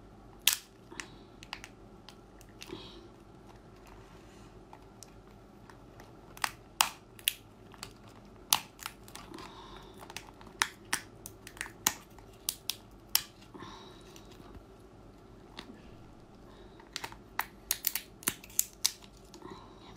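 Cooked lobster shell cracking and snapping as it is broken open by hand: a series of sharp cracks in irregular clusters, busiest in the second half.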